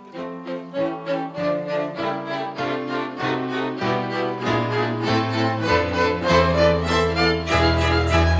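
Church string orchestra of violins and cellos playing an instrumental interlude of a hymn: a steady run of bowed notes, with low bass notes coming in about halfway and the music growing louder.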